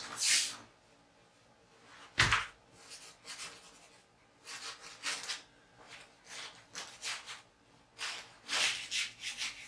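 Paintbrush working acrylic paint onto a large stretched canvas in a series of short brush strokes, with a single knock about two seconds in.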